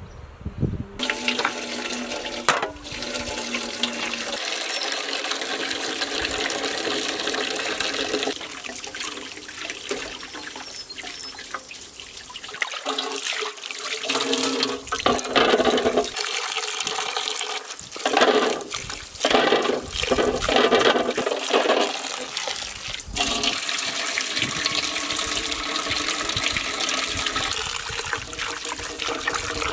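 Tap water gushing into a glass bowl set in a metal basin, splashing as hands rinse the bowl and then wash chopped greens in it. The splashing comes in uneven louder surges around the middle.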